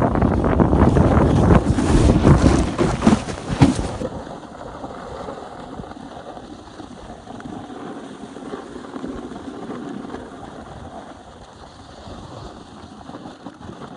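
Wind buffeting the microphone of a camera carried down a ski slope at speed, with the hiss and scrape of sliding on snow. About four seconds in it drops abruptly to a much softer steady hiss of gliding over packed snow.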